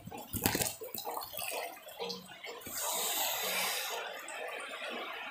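Water splashing and then pouring in a loud rush about three seconds in, easing off after about a second, as a fish is tipped into an aquarium with its water.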